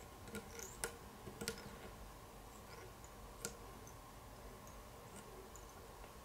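A few faint, scattered clicks and ticks from hands handling thread and a hook clamped in a fly-tying vise, the clearest just under a second in, about a second and a half in, and near three and a half seconds.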